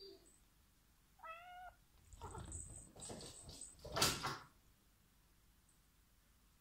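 Domestic cat meowing once, a short call about a second in, followed by a couple of seconds of scuffling noise that is loudest about four seconds in.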